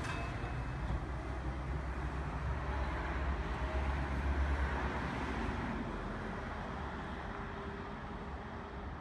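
Street traffic: a trolleybus towing a trailer moving off down the road, and a car driving past. A low rumble swells about halfway through, then eases off.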